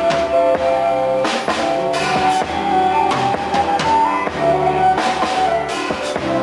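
Rock band music: a drum kit keeps a steady beat under electric guitar and a sustained melody line.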